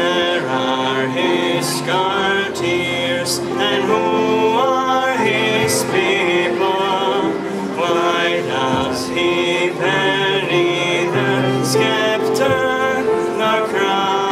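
A small children's choir singing a song in several voices through microphones, over an instrumental accompaniment with sustained low notes.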